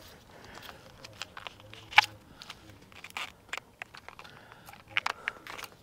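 Scattered light clicks, taps and crackles of plastic conduit and loose wiring being handled. One sharper click comes about two seconds in, and a few more close together near the end.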